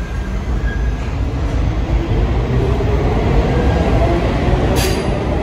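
New York City subway train running through the station with a loud, steady rumble that grows louder over the first two seconds, a faint whine riding on it, and one sharp click near the end.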